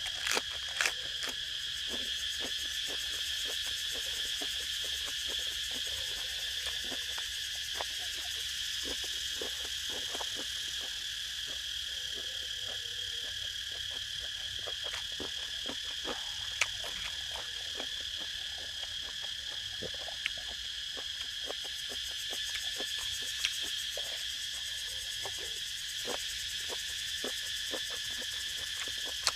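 A steady high-pitched chorus of insects, with frequent short clicks from close-up chewing of food.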